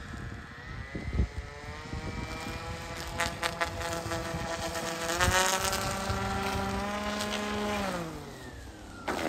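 An 1800 W Neumotor electric motor turns a belt-driven custom three-blade propeller on a quarter-scale RC seaplane, whining steadily under power on a takeoff run. The pitch climbs about a second in, steps higher at about five seconds, and falls away near eight seconds as the throttle is eased. A few sharp splashes come from the floats around three seconds in.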